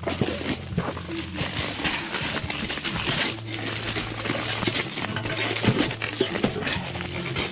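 Rustling and crinkling of ice-fishing tent fabric being shifted and set in place, in irregular scuffs and clicks, over a low steady tone.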